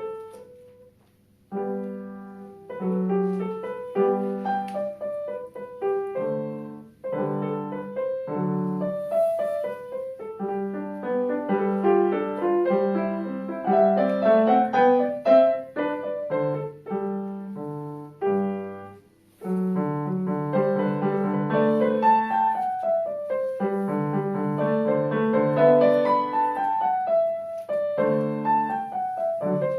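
Solo piano playing a classical piece, with brief pauses in the playing about a second in and about two-thirds of the way through.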